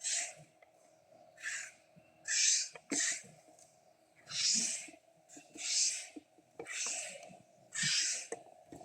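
A man's breathing close to the microphone, about eight hissy breaths a second or so apart, with faint clicks and knocks of plastic parts being handled.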